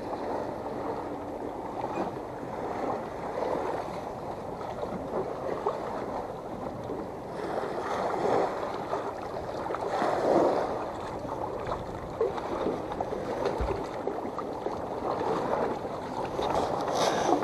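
Small waves lapping and splashing against a boat's hull and the shallow launch ramp.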